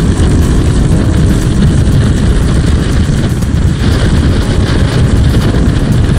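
Wind buffeting a motorcycle-mounted camera's microphone at highway speed, a loud steady rush with heavy low rumble, with the motorcycle's running engine and road noise underneath.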